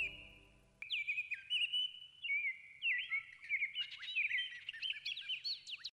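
Songbirds chirping and whistling busily, many short rising and falling notes that grow denser near the end. Just under a second in, the tail of a fading music track cuts off abruptly.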